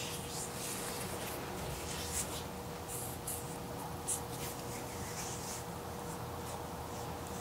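Hands massaging bare feet: irregular soft scratchy rubbing strokes on skin, over a faint steady hum.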